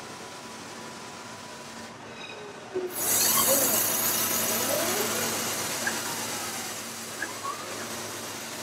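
Steady machine hum, then about three seconds in a loud rushing hiss starts suddenly and fades slowly, with a few faint squeals sliding in pitch: a ring-shaped gas burner flaming under a metal part on an automated production line.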